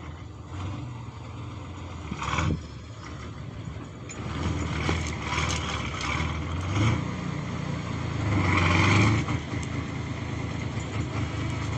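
Kirovets K-701 tractor's diesel engine running and working under load, its pitch and loudness rising in surges and loudest about nine seconds in. A short knock sounds about two seconds in.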